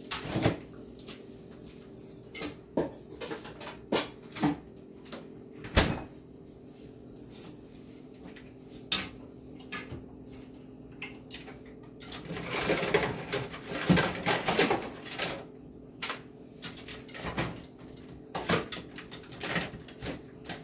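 Kitchen clatter: scattered knocks and clinks of dishes and utensils, with a busier stretch of clatter a little past the middle, over a steady low hum.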